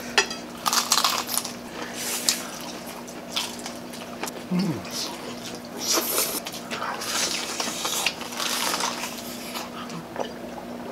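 Eating sounds close to the microphone: crunchy bites into fried chicken and chewing, in irregular short bursts.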